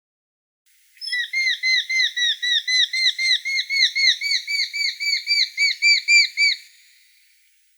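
Eurasian hobby fledgling calling: a fast, even series of short, sharp notes, about four a second, that starts about a second in and stops near the end.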